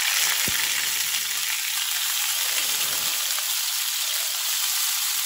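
Salmon fillets frying in hot butter in a pan, a steady sizzling hiss as the fillets are laid in to sear.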